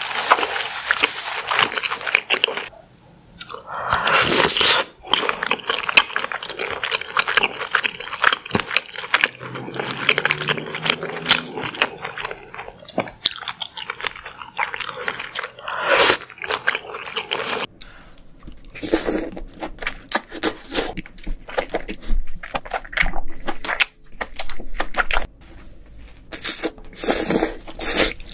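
Close-miked chewing of king crab and lobster meat, with crunching and wet mouth sounds. About two-thirds of the way in, the eating sounds become sparser over a faint low hum.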